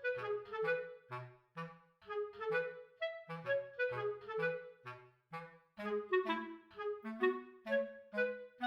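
Background music: a bouncy, light melody in short separate notes over a bass line.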